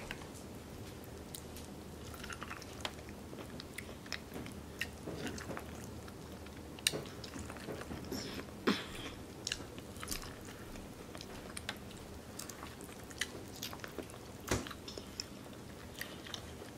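Biting into and chewing a cob of boiled corn, with many short, irregular wet clicks and smacks of the mouth.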